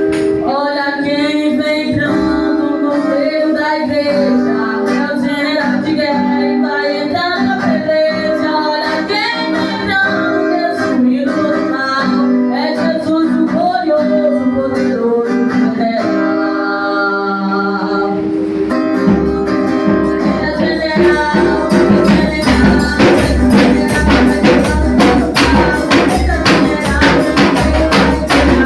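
Gospel song played by a small band: a sung melody over sustained chords, then about 19 seconds in bass and percussion with tambourine come in with a steady beat.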